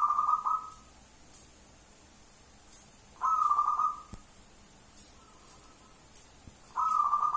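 Zebra dove (perkutut) cooing: three short, shrill coo phrases about three and a half seconds apart. This is the high-pitched 'jerit' (screaming) voice type that perkutut fanciers prize.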